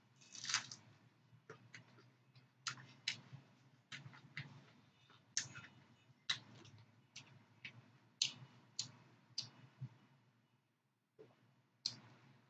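Close-up chewing of a raw lettuce wrap with carrot and green pepper strips: a bite about half a second in, then irregular crisp crunching clicks that stop about ten seconds in, with a couple more near the end.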